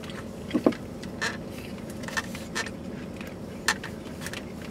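Eating sounds: a plastic fork clicking and scraping against a takeout food container, with chewing, over the steady hum of a car interior. The loudest clicks come in a pair about half a second in.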